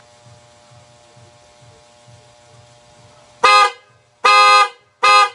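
Yellow Hella electric horn, rated at 110 dB, sounded in three short blasts, the middle one the longest. Its tone is loud and described as more on the bass side.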